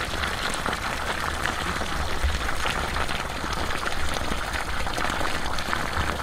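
Water gushing steadily from the open end of a PVC pipe and splashing onto the ground: a steady rushing noise, the outflow of a pump running without electricity.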